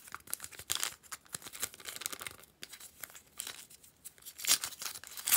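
Small handmade paper packets crinkling and tearing as fingers handle and open them: a run of quick crackles with two louder rips near the end.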